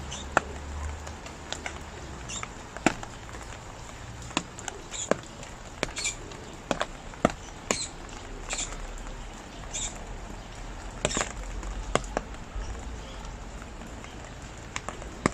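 Rain falling with a steady hiss, broken by irregular sharp drips striking a hard surface. A few short, high-pitched chirps come in the middle.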